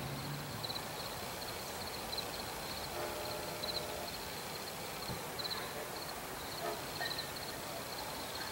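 Night ambience with insects chirping in short, evenly repeated pulses, while the approaching Amtrak train's horn sounds faintly in the distance from about three seconds in.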